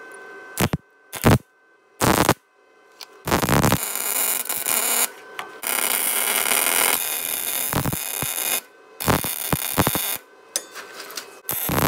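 MIG welder arc crackling while welding onto a broken exhaust manifold stud in the cylinder head, done so the snapped stud can be backed out. It runs as three short tacks in the first two seconds, a long run of about five seconds, more short bursts, then another run starting near the end.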